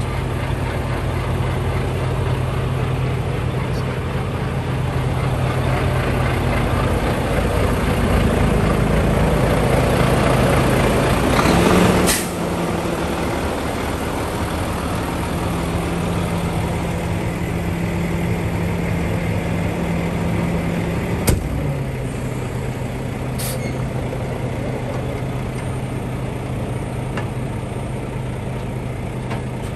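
Semi truck's diesel engine running, revving up gradually before a sharp air-brake hiss about twelve seconds in. It then holds a faster idle until a click about twenty seconds later, when it drops back to a low idle.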